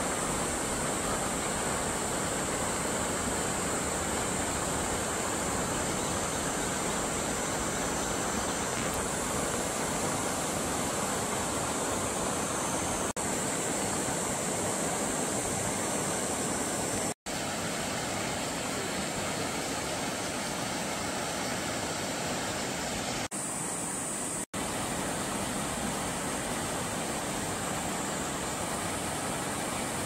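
Steady rush of stream water, an even noise with a constant high hiss above it. It cuts out for an instant twice in the second half, where clips are joined.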